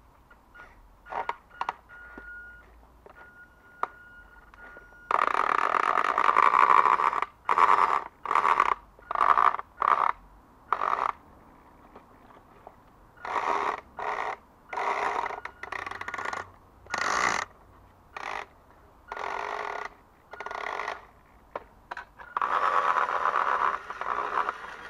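WPL B-1 1/16 RC military truck's electric motor and gearbox running with the wheels off the ground, blipped on and off in repeated bursts from about five seconds in, the longest about two seconds. The noise in its drive is what the owner takes for worn gearbox gears. A few light clicks and a faint steady whine come before the first burst.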